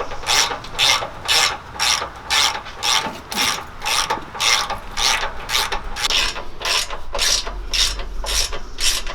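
Hand socket ratchet being worked back and forth to run bolts in, its pawl clicking in a short burst on each swing, about two strokes a second.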